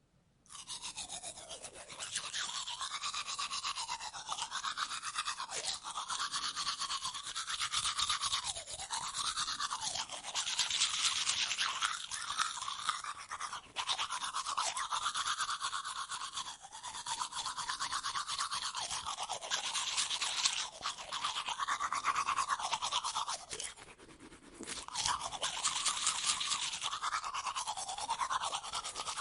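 Toothbrush scrubbing teeth in quick back-and-forth strokes, continuous, with a brief lull late on.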